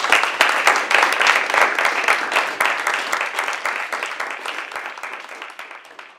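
Audience applauding: dense clapping that starts loud and gradually fades, dying away near the end.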